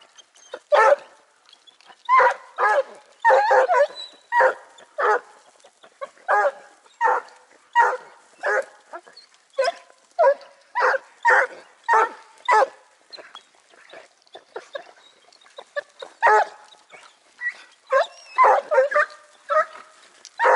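A pack of hare-hunting hounds giving tongue: repeated barks and bays, one or two a second, as they work the hare's scent trail. The barking thins out for a few seconds past the middle, then picks up again, thick and overlapping, near the end.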